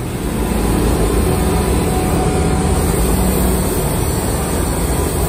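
Air-powered hand sander running steadily against an aluminium alloy wheel, sanding the repaired rim smooth in preparation for polishing.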